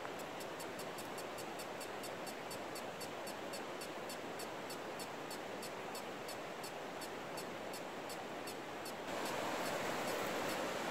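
Steady rushing of a river or stream. Over it, a rapid run of thin, high ticks goes on, about five a second at first and then slowing, and stops about nine seconds in. The water gets louder at that point.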